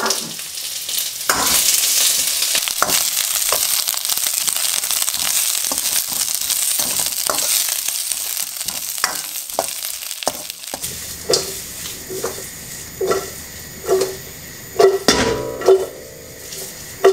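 Chopped onion, cabbage and cherry tomatoes sizzling in hot oil in a stainless steel wok, with a metal ladle stirring and scraping them in many small clicks. Past the middle the sizzle is quieter and the wok gives sharp metal clanks with a ringing note, roughly once a second.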